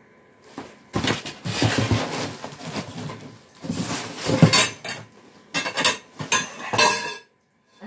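Metal clothing-rack tubes clattering and knocking against each other as a part falls, mixed with cardboard packaging rustling and scraping. The run of clatters starts about a second in and stops suddenly near the end, with a brief metallic ring in the last clatters.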